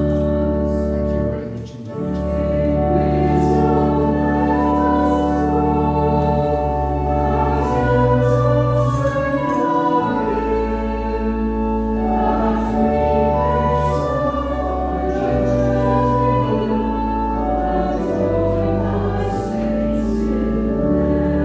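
A church congregation singing a hymn to organ accompaniment, with held chords over a steady deep bass. The singing breaks briefly about two seconds in.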